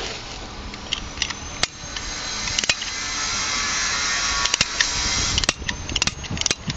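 An exothermic Cadweld charge burning in its mold to weld a copper ground wire to a ground rod: a rising hiss that swells over a few seconds and then dies away, with sharp crackles and pops throughout, more of them near the end.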